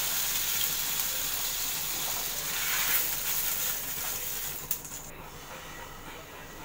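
Water splashed on a hot non-stick pan hissing and sizzling as it boils off, which brings the pan's temperature down. The hiss fades, a short knock comes near the five-second mark, and the sound drops away after it.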